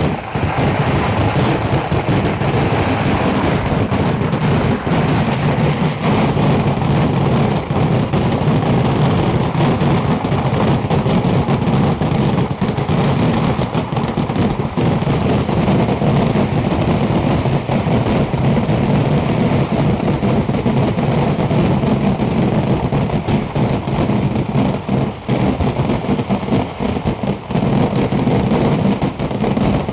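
Fireworks barrage: a dense, continuous rapid string of firecracker bangs and crackle, with a few brief lulls near the end.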